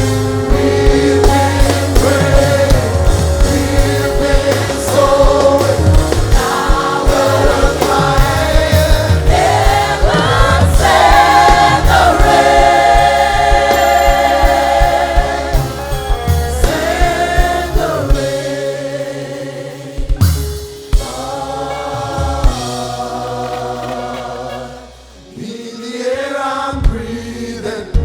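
Gospel choir singing a worship song with a live band underneath, bass and drums keeping a steady beat. The low end drops away for a moment past the middle, and the music thins briefly near the end before picking up again.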